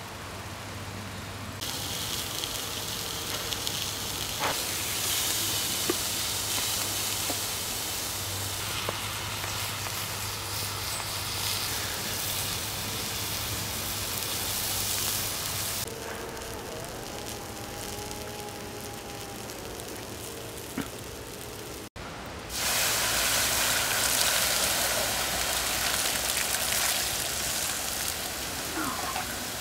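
Sausages sizzling in a frying pan over a Swedish torch, a fire burning inside a split log, as a steady frying hiss. From about two-thirds of the way in, a louder steady hiss as the fire inside the log is put out and it gives off a thick plume of steam.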